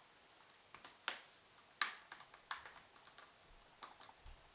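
Plastic snaps of a laptop screen bezel clicking into place as it is pressed down around the edge: a run of sharp, irregular clicks, the loudest about one and two seconds in.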